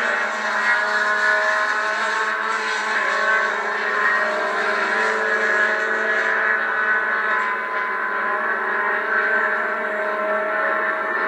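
Engines of several small H Production race cars running hard around the circuit, a steady overlapping mix of engine notes. Heard thin, with no low end, as if played back through a television speaker.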